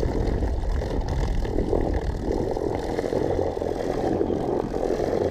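Electric trolling motor running steadily, its propeller churning the water.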